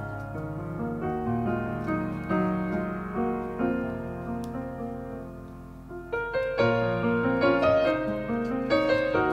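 Background piano music, easing off toward the middle and returning with fuller, louder chords a little past halfway.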